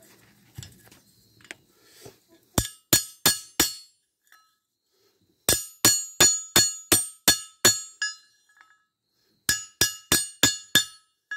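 Hammer blows on metal tubing laid on a homemade anvil, straightening the bent pipe. The blows come in three runs of about four, eight and five strikes, roughly three a second, each leaving a short metallic ring.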